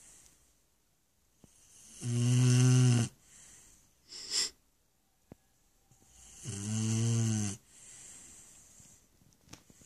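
Shar Pei dog snoring in its sleep: two long, low snores about four seconds apart, each lasting about a second, with a shorter breathy sound between them.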